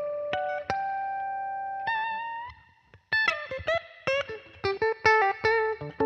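Solo Fender Telecaster electric guitar playing a blues line: a few held notes ending in a bent note, a brief pause about halfway, then a quick run of short picked notes.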